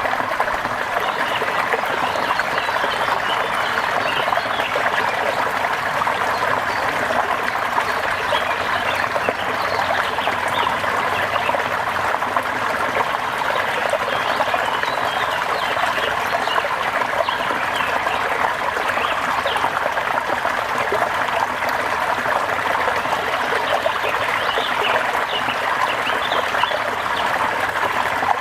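Steady rain with water trickling, a constant hiss dotted with many small drips.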